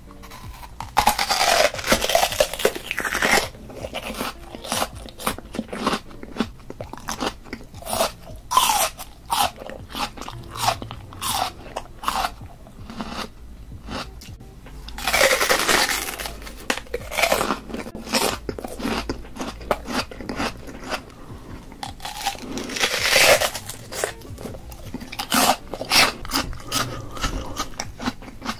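Whole raw onion being bitten and chewed: crisp, wet crunching that runs on throughout, with louder bursts of crunching about a second in, again just past the middle, and about three-quarters of the way through.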